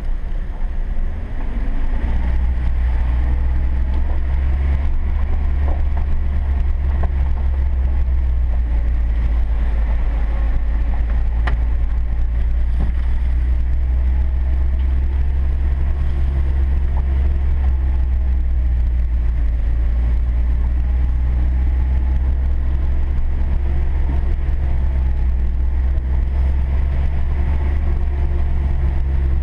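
Ford pickup truck's engine running steadily at low speed on a rough dirt track, heard from inside the cab, with a single sharp click about eleven seconds in.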